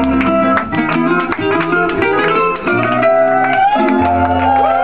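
Hawaiian hula music: an acoustic guitar picked in quick plucked notes, with a singing voice coming in near the end.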